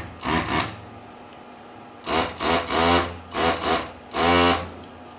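Soldavac VP-1800 desoldering gun's built-in vacuum pump running in short trigger-pulled bursts for suction: two near the start, then after a pause about six more, each rising and falling in pitch.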